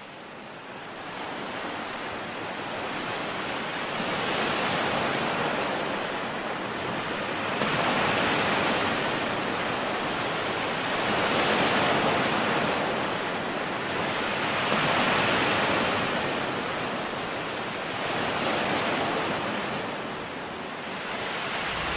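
Ocean waves washing in: a rushing hiss of surf that fades in and then swells and ebbs about every three to four seconds.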